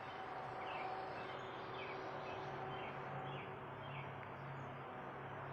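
A small bird chirping over and over, short falling chirps about one a second, over steady background noise with a low hum.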